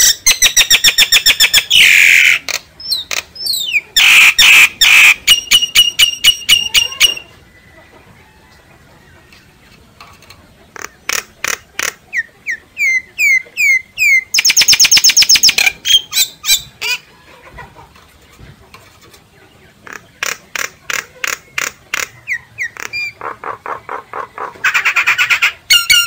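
Myna calls played as a lure recording. They come as rapid runs of clipped, repeated notes and short downward-sliding whistles, with a lull of a few seconds about a third of the way through.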